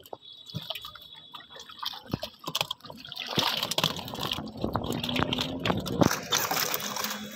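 Shallow pond water splashing and sloshing with scattered wet slaps as live fish are grabbed out of a net by hand and dropped into a basin; sparse for the first few seconds, then busier and louder from about three seconds in.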